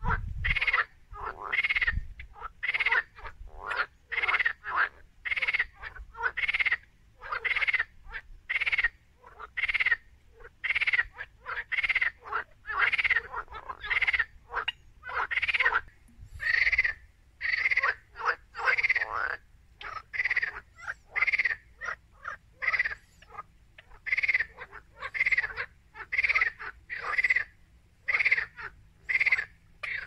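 Frogs croaking in a steady series of short calls, about two a second, with a few brief pauses.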